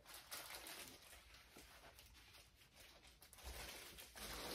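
Near silence: room tone, with faint rustling from movement about three and a half seconds in.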